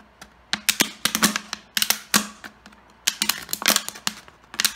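Round-tipped scissors snipping and working into a thin plastic water bottle to get a cut started: irregular clusters of sharp clicks and crackles from the plastic.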